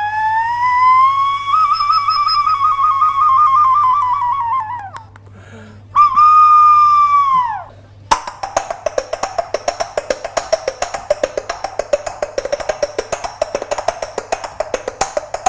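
Two high, wavering whistle-like tones, a long one and then a short one that falls away, give way about eight seconds in to a fast, even clip-clop of coconut shells knocked together to imitate a horse's galloping hooves.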